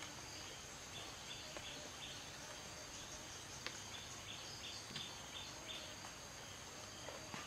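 Faint forest ambience: a steady high insect drone, with runs of short chirps repeating about three times a second and a few scattered clicks.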